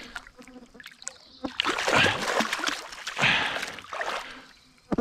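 A large hooked trout thrashing and splashing at the water's surface as it is played on the line, in two bouts of splashing about two and three seconds in.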